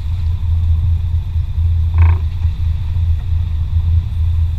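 Sportfishing boat's engine running with a steady low rumble. A single short call from a voice aboard comes about two seconds in.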